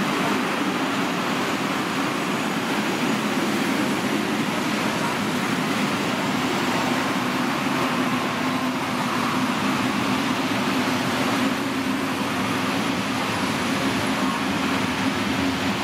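Freight train of open-top wagons rolling past at a steady speed: a continuous rolling noise of wheels on the rails.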